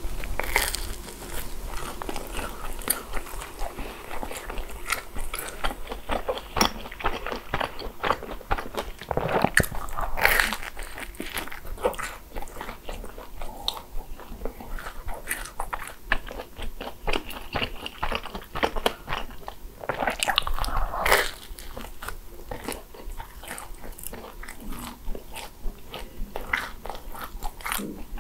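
Biting into and chewing crisp croffles (croissant waffles): the crust crunches with a dense run of small crackles, with louder bites about ten and twenty-one seconds in.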